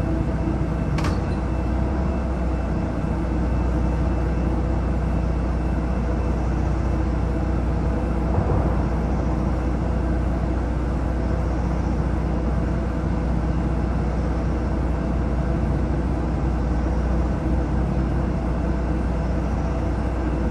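Bus in motion heard from inside the cabin: a steady low engine drone and road rumble, with one short click about a second in.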